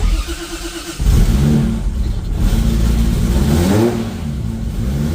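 Freshly rebuilt turbocharged Toyota 2JZ inline-six being cranked over on its first start. It catches and fires about a second in, is revved up and down a couple of times, then settles into a steady idle.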